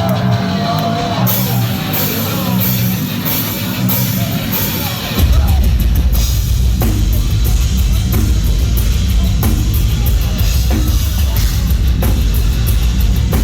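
Live heavy metal band playing loudly with drum kit and distorted guitars; about five seconds in the full band crashes in with a heavy, pounding low end and fast drumming.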